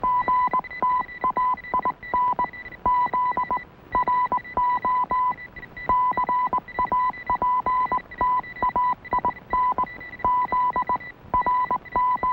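Radio-telegraph sound effect: a tone keyed on and off in quick, irregular short and long beeps like Morse code dots and dashes, over a steady higher whine.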